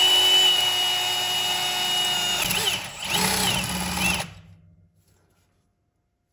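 Power drill running at speed, drilling out the crank pin hole through a crank-pinning jig into the crankshaft snout of an LS engine. It runs with a steady high whine for about two and a half seconds, slows and picks up briefly, runs again for about a second, then stops about four seconds in.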